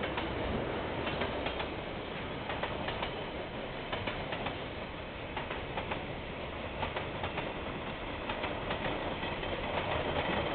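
Freight train of container wagons rolling past, with steady wheel rumble and repeated clicks of wheels over the rail joints. It is heard through a security camera's microphone, with no high end.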